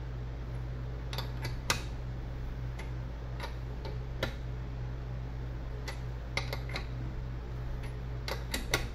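Ratchet wrench clicking in short, irregular runs as a socket is worked on a wheel hub assembly held in a vise, over a steady low hum.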